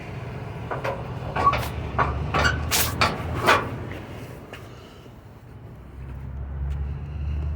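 Semi-truck engine idling with a low rumble, with a quick run of six or seven sharp metallic knocks about one to three and a half seconds in; the rumble grows louder again near the end.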